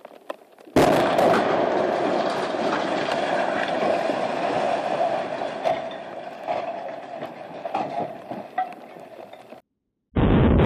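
Demolition of a tall concrete tower: a sudden loud bang about a second in, then a long rumbling crash with scattered sharp cracks of breaking concrete and falling debris, slowly fading. It cuts off abruptly near the end, and a new loud rumble starts just before the end.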